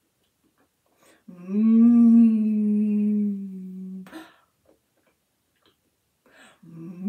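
A woman humming "mmm" with her mouth closed, as if savouring food. One long, nearly level hum starts about a second in and lasts nearly three seconds. A second hum near the end swoops up and down in pitch.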